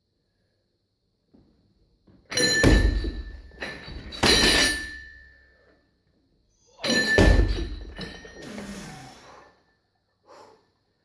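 A loaded weightlifting barbell with bumper plates thudding and clanging: two bouts, about two seconds in and again about seven seconds in. Each is a heavy thud with the metal bar and plates ringing and rattling after it.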